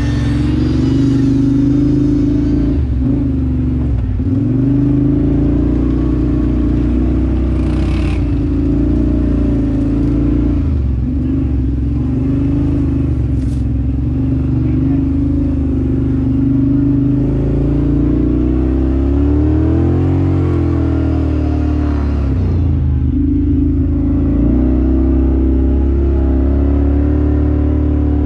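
Off-road vehicle engine running under a rider, its pitch dipping and climbing again many times as the throttle is eased and opened.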